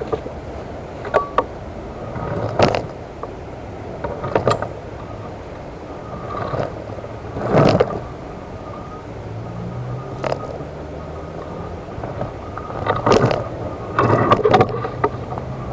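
Electric wheelchair rolling over rough, uneven ground: irregular knocks and rattles every second or two, the loudest cluster near the end, over a faint motor hum.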